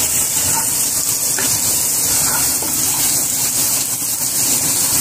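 Sliced onions and whole spices sizzling in hot oil in a pot, stirred with a wooden spoon: a steady hiss.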